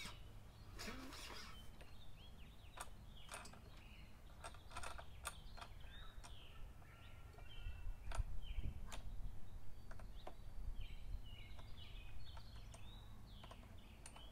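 Outdoor background with birds chirping in short calls over a steady low rumble, and scattered clicks and knocks as the mower's folding handle is moved by hand.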